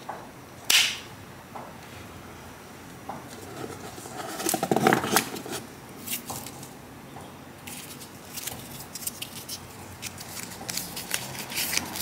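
Hands handling a MacBook Air's plastic power adapter and its braided charging cable. There is a sharp click about a second in, a burst of rustling around the middle, then light clicks and rustles as the coiled cable and its paper wrap are handled.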